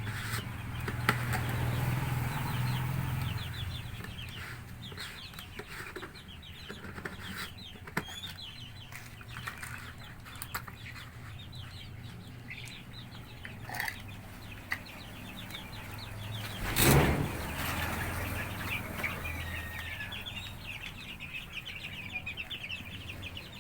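Chicks peeping steadily, many short high chirps overlapping, with scattered light clicks. About seventeen seconds in, a brief loud rustle or knock stands out above them.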